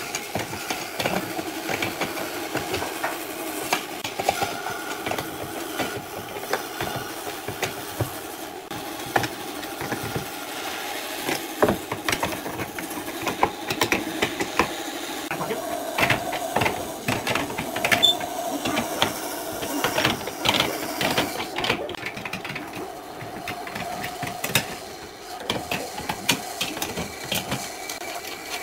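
Steel bar clamps being tightened with a wrench on a glued-up wood panel: repeated sharp metal clicks and knocks, in quick runs in the middle and near the end, over a steady machine hum.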